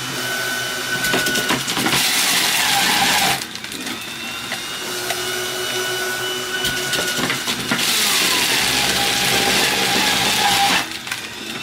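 Cuisinart 1000-watt centrifugal juice extractor running on speed 3 with a steady motor whine. Twice, about two seconds in and again near eight seconds, produce is pushed down the chute and ground up with a loud grinding rush, and the motor's pitch sags under the load.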